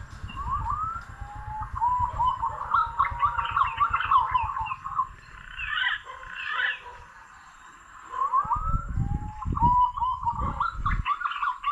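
Green pigeon singing: two runs of fluting, rising and falling whistles, the first from about a second in and the second starting near 8 s, over a low rumble.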